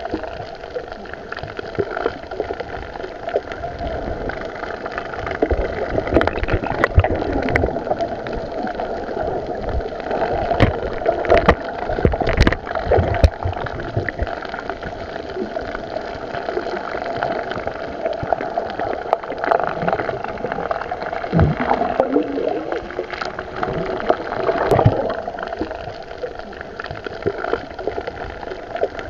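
Underwater sound picked up through the camera's housing: water gurgling over a steady hum, with scattered clicks and knocks.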